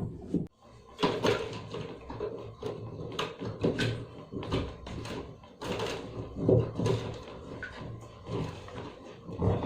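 Irregular knocks, clicks and scraping of washing-machine drain parts being handled and pulled apart by hand while the clogged drain is opened up.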